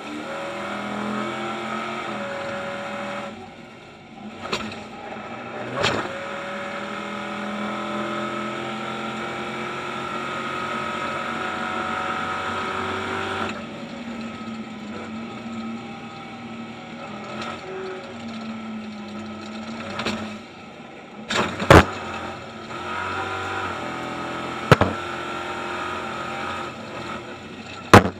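Stadium Super Truck V8 race engine at high revs, its pitch climbing and dropping back through gear changes and lifts, heard from a camera mounted on the truck's bumper. Several sharp knocks break through, the loudest about three-quarters of the way in and another right near the end.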